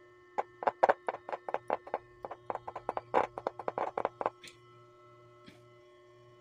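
Repaired 10-inch subwoofer cone popping in a rapid, irregular run of about two dozen clicks as a battery's leads are tapped on and off its terminals, checking that the new voice coil moves freely. A faint steady hum runs underneath.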